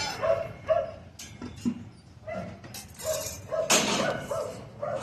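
A dog barking repeatedly in short, quick barks, with a long rasping burst of noise about three-quarters of the way through.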